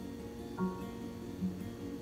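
Soft plucked-string background music, single notes struck slowly, about one every 0.8 seconds.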